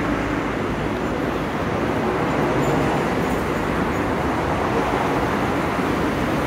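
Steady city street noise: a continuous hum of road traffic going by.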